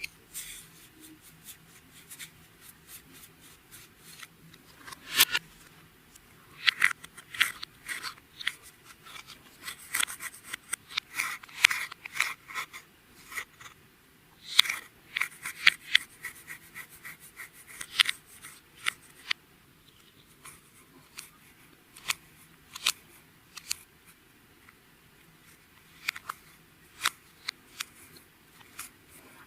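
Clear slime being squeezed and kneaded by hand, giving off irregular sharp clicks and crackling pops, in quick runs in the middle and sparser towards the end.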